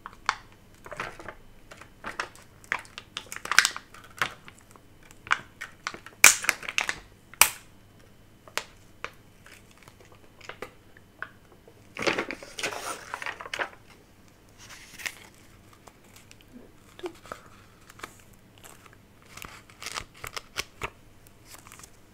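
Paper stickers being handled, peeled from their backing sheet and pressed onto a notebook page: scattered crinkles and small taps, with a longer peeling rustle about twelve seconds in.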